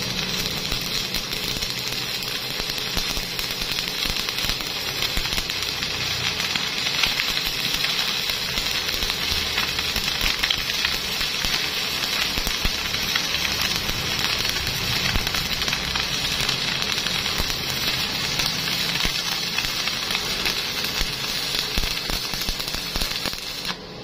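Stick (electric arc) welding on thick steel plate: the arc crackles and sizzles steadily, with a dense run of small rapid pops, then cuts off suddenly near the end when the arc is broken.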